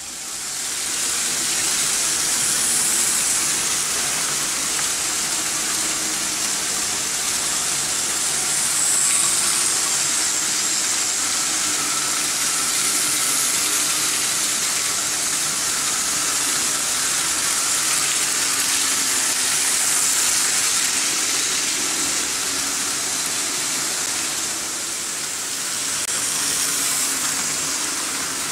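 Vintage Märklin H0 model trains running on metal M-track: a steady rushing, hissing rattle of wheels rolling on the pressed-steel rails, with a faint steady whine. It fades in over the first couple of seconds.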